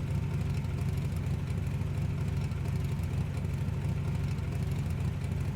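Steady low rumble of idling car engines in stopped traffic.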